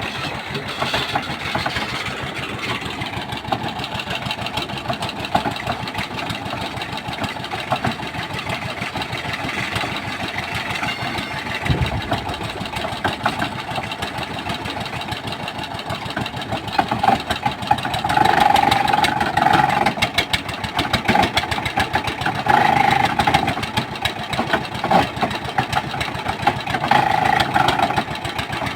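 Engine of a water-well boring machine running steadily. From about two-thirds of the way in, it has short, repeated whining tones over it.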